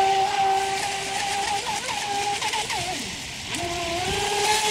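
Feilun FT011 RC speedboat's brushless motor whining at speed, with a hiss of water spray. The pitch dips briefly several times in the middle as the throttle is blipped, drops away about three seconds in, then climbs back to a steady whine near four seconds.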